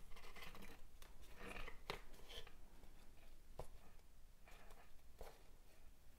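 Faint rustling and scraping of thin waxed polyester cords being handled and pulled into knots, with a few light ticks.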